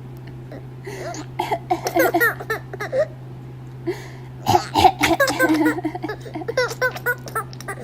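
A baby laughing in repeated giggling bursts at a woman's fake coughing, with a cough about halfway through.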